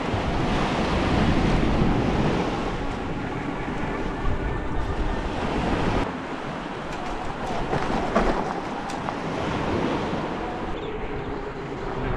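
Wind rushing over the microphone while riding, mixed with surf breaking along the shore. The sound changes abruptly about six seconds in and again near the end.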